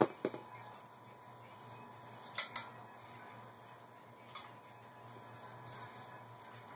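A few short metallic clinks and taps of hand tools on a lowrider bicycle's parts during its teardown, the loudest about two and a half seconds in, over a faint steady background.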